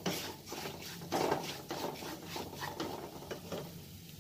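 Wooden spatula scraping and stirring thick onion-and-spice masala around a non-stick pan in repeated strokes, dying down near the end.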